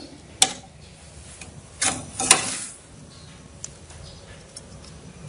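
Sharp plastic clicks as the retaining clips of a desktop motherboard's RAM slot are pressed open and the memory stick is pulled out: three clicks in the first two and a half seconds, then a fainter one.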